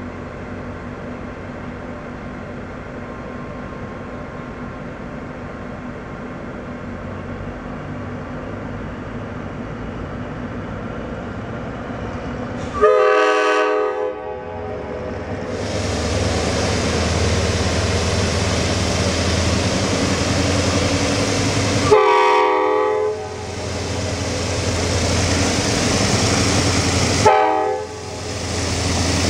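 Diesel locomotive approaching, its engine rumble growing steadily louder, with the air horn sounding three times: a long blast about halfway through, another later, and a short one near the end.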